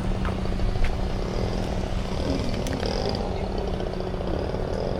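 Radio-controlled model airplane flying, a faint high motor whine that wavers in pitch over wind buffeting the microphone and a steady low hum.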